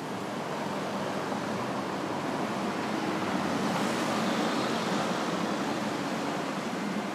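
Road traffic noise: a steady rush that swells to its loudest about four seconds in and then eases slightly as vehicles pass over the crossing.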